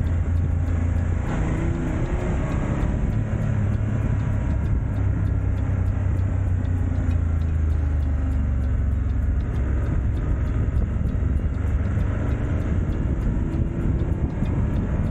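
Motorcycle engine running steadily while riding along at cruising speed, its note rising a little in the first few seconds, with wind rushing over the microphone.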